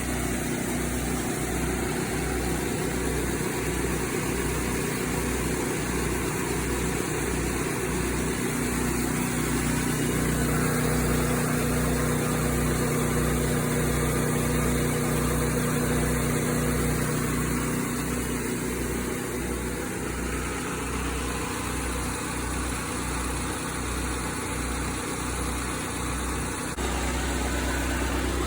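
Engine-driven service-truck air compressor running steadily, with a low throb pulsing about one and a half times a second. Near the end the pulsing gives way to an even drone.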